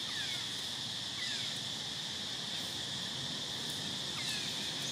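Steady high-pitched insect chorus, with a few faint short falling chirps over it.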